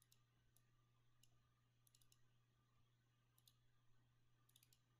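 Near silence with faint, scattered computer mouse clicks, some in quick runs of two or three, as edges are selected; a low steady hum lies underneath.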